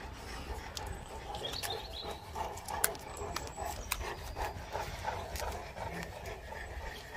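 Dogue de Bordeaux dogs panting and snuffling as they mouth and tussle over a chew toy, with a few sharp clicks.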